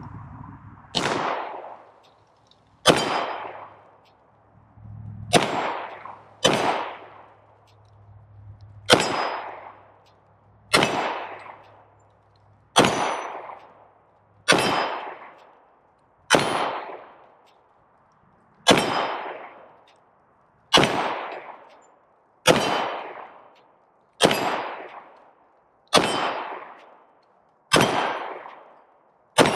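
Bear Creek Arsenal BC-102 Grizzly 9mm pistol fired in slow, deliberate single shots, about sixteen of them roughly two seconds apart, each shot ringing out and dying away over about a second.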